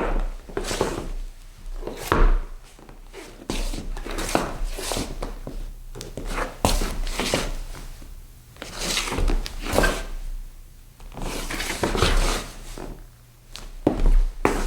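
Shoe soles scuffing and scraping on a wooden floor in an irregular string of scrapes, some short and some drawn out for about a second. Some of the scrapes come with a low thud of the foot.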